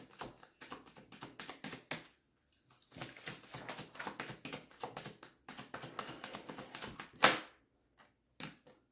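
Deck of tarot cards shuffled by hand: a run of quick papery clicks that pauses briefly about two seconds in. Then one louder slap a little after seven seconds, with cards dropping onto the table.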